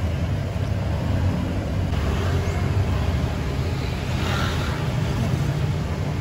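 Steady low rumble of road traffic, even throughout, with no single vehicle passing distinctly.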